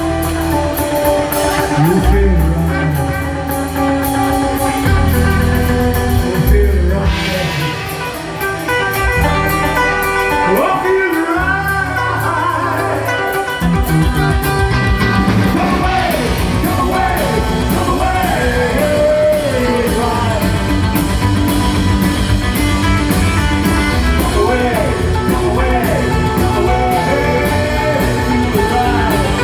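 Rockabilly band playing live: electric guitar with bent, sliding notes over bass and drums. The bass and drums play broken-up, stop-start notes at first, then settle into a steady driving beat about halfway through.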